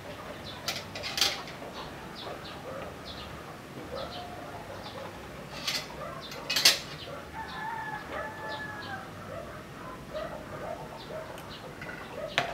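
Spoon and fork clinking against a plate now and then, sharpest just past the middle, with birds calling in the background, including one long drawn-out call past the middle.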